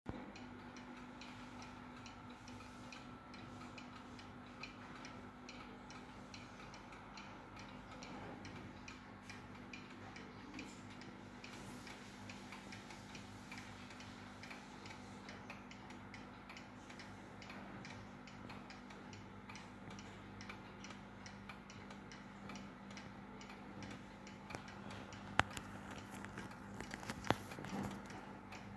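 Soviet pendulum wall clock ticking steadily and evenly as the pendulum swings, over a faint steady hum. A few sharper, louder knocks come near the end.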